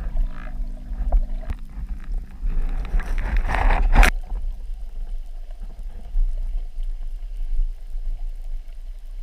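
Muffled underwater rumble and wash of water around a camera on a speargun while snorkeling, with a rising rush that ends in a sharp knock about four seconds in.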